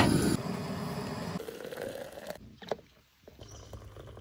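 Gas camp stove burner hissing steadily under a metal kettle, with a faint rising tone as the water heats, cutting off abruptly a little over halfway. Near the end, coffee is poured from a pot into an enamel mug.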